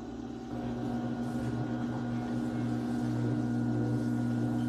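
Electric pottery wheel's motor running with a steady hum, growing louder about half a second in.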